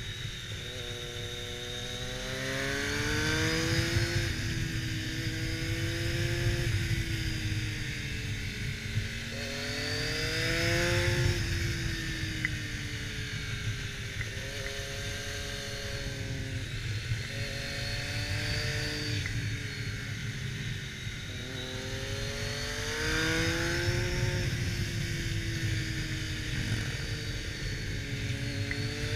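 A Triumph Daytona 675R's three-cylinder engine heard from on board the bike, its revs climbing and easing off about five times through a run of bends. A steady low wind rush runs beneath it.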